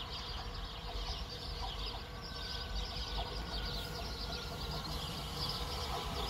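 Birds chirping over the low rumble of a red regional electric train approaching in the distance, the rumble growing slightly louder.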